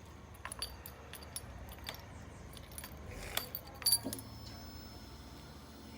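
Keys jangling and clicking, with a few sharper metallic clicks, then a faint steady whine from about four seconds in.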